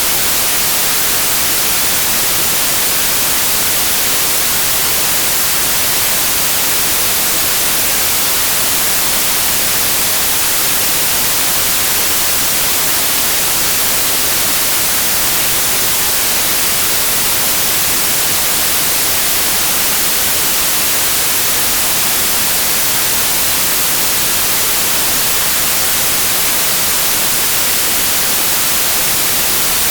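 Steady white noise: an even, unchanging hiss played as a tinnitus-masking signal.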